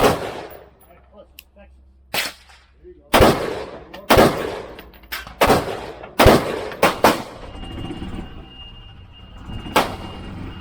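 Gunshots from an AR-15 pistol fired one at a time at an irregular pace, about a second apart, each crack followed by a short echo. There is a cluster of quicker shots around the middle and a last shot near the end.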